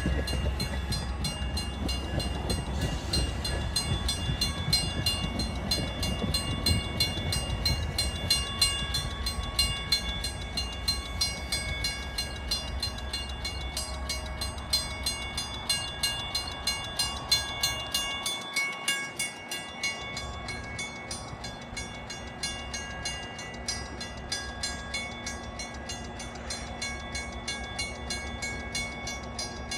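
A Metra commuter train moving through the station, its wheels clicking over the rail joints in a steady, repeating rhythm with a low rumble and some steady high tones. The rumble drops away a little past the middle.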